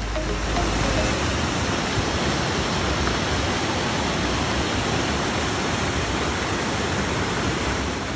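A mountain stream and small waterfall rushing steadily over rocks into a pool.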